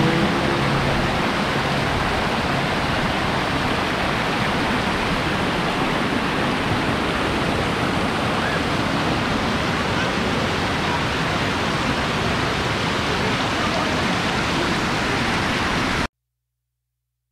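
Thermal spring water pouring over travertine terraces, a steady even rush of falling and flowing water. It cuts off suddenly about a second before the end.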